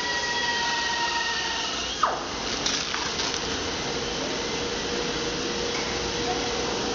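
Steady machinery hiss and hum in a tire retreading shop, with faint steady whining tones and a single sharp knock about two seconds in.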